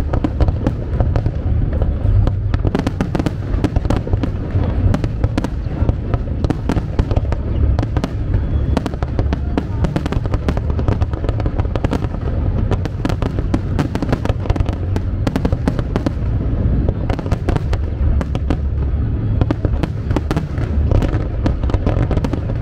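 A fireworks display firing in a dense, continuous barrage: many sharp cracks and bangs in quick succession over steady deep booming.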